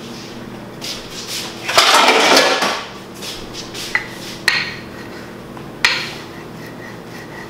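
Dishes and utensils being handled at a kitchen counter and sink: a loud, noisy rush about two seconds in, then a few sharp clinks and knocks as things are set down.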